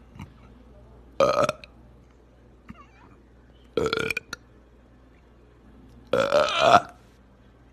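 A person burping loudly three times: a short burp about a second in, another midway, and a longer, drawn-out burp near the end.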